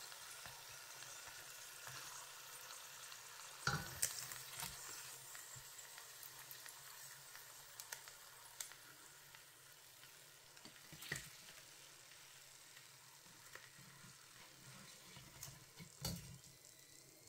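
Sun-dried snakehead fish frying in shallow oil in a pan: a faint, steady sizzle that slowly dies down, with a few sharp clicks as chopsticks turn the fish and lift it out.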